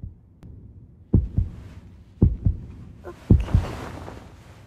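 Heartbeat sound effect: three lub-dub double thumps about a second apart, over a faint low hum.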